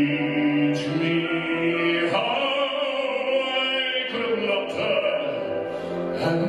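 A man singing live into a microphone in a full, operatic style, holding long notes with vibrato over musical accompaniment.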